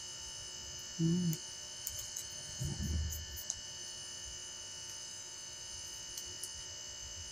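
Steady electrical hum made of several fixed tones. About a second in, a short low buzz lasting about a third of a second; a rougher low handling sound follows just before the middle, with a few light clicks.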